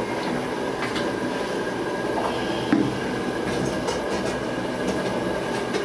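Steady low rumbling background noise with a faint hum, even in level, with one short louder knock about three seconds in.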